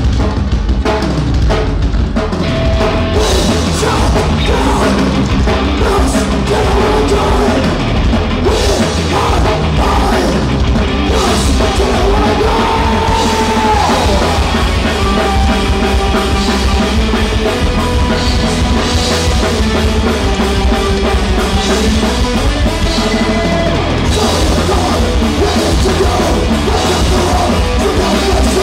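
Loud live rock band playing punk/metal-style rock, with a pounding drum kit under sustained pitched instrument lines and no break.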